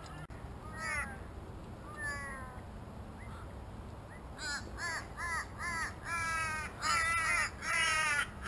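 Crows cawing: a couple of scattered calls, then from about halfway a quick run of short caws that stretch into longer, drawn-out calls near the end.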